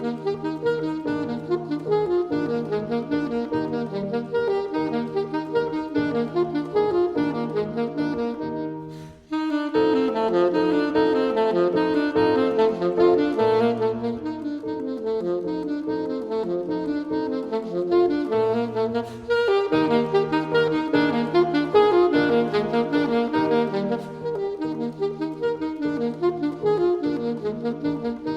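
Classical saxophone playing with piano accompaniment, a recorded concert piece; the music drops away briefly about nine seconds in and starts again.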